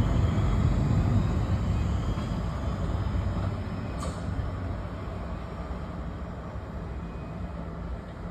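Electric multiple-unit passenger train running along the rails away from the platform, its low rumble fading steadily as it recedes, with a faint tick about four seconds in.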